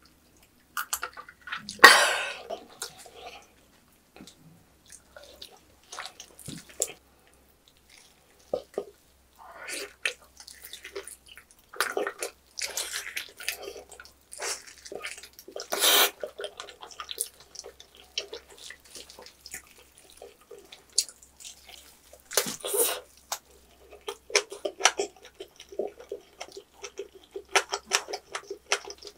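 Close-miked eating of a roasted pork knuckle (Schweinshaxe): bites into the crisp, chewy skin and wet, sticky chewing and smacking, with a few louder crackling bites. A loud sharp sound about two seconds in stands out above the rest.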